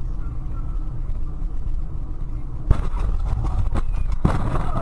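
Steady engine and road rumble inside a moving car, then the sudden bang of a collision a little over halfway through. Clattering and a second bang follow as the car is knocked off the road.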